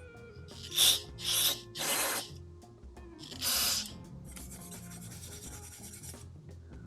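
Carburetor parts being cleaned by hand: four short bursts of scrubbing noise, then a softer, steadier stretch of it for about two seconds.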